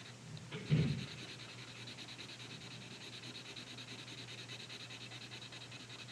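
Felt-tip Sharpie marker scribbling back and forth on paper as a solid circle is coloured in, a soft steady scratching. A brief louder low sound comes about a second in.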